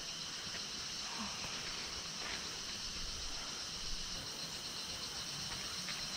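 Steady, high-pitched chorus of insects, with a few faint ticks.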